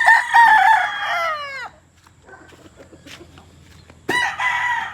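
Roosters crowing: one long crow that falls in pitch and dies away under two seconds in, then a second crow starting about four seconds in.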